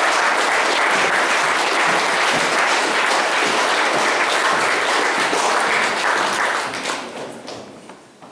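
Audience applauding: many hands clapping together, steady and loud, then dying away over the last second or two.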